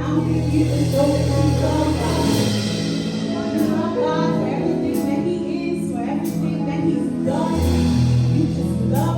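Gospel music: voices singing over long held keyboard chords, the bass chord changing twice.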